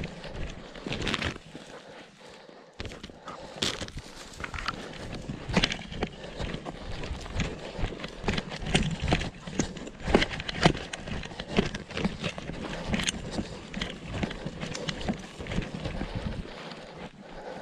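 Footsteps of a person walking through forest undergrowth: irregular crunching and swishing steps a few per second, with brush rustling close by. There is a brief lull about two seconds in.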